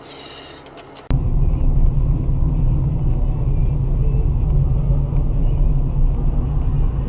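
Loud, steady low rumble of a moving car's road and engine noise picked up by a dashcam inside the car, starting abruptly about a second in. Before that there is only faint background noise.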